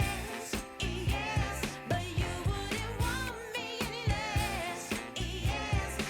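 Background pop music with a sung vocal over a steady beat.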